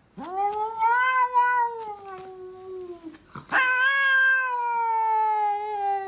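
Domestic cat yowling: two long, drawn-out yowls, the first rising and then sagging in pitch, the second starting high and slowly falling.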